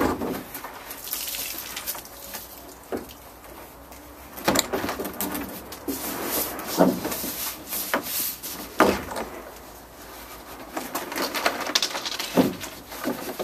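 Plastic drop-in pickup bed liner being wrestled out of the truck bed and lifted: irregular scraping and sharp knocks of the plastic against the truck, with the loudest knocks a few seconds apart.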